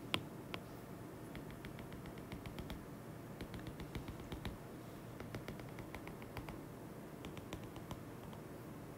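Stylus tip tapping on a tablet's glass screen in quick runs of light clicks as short dashed lines are drawn, with two sharper taps near the start.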